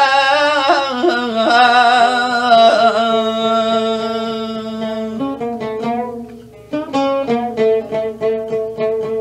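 A man singing a wavering line with an oud, ending on a long held note; about five seconds in the voice stops and the oud plays alone, a run of plucked notes with a brief pause in the middle.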